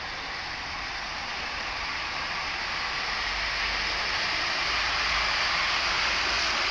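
Hornby 00 gauge model locomotive (LNER A4 Mallard) and its coaches running along outdoor garden-railway track: a steady rushing noise of motor and wheels on rail, growing louder as the train comes closer.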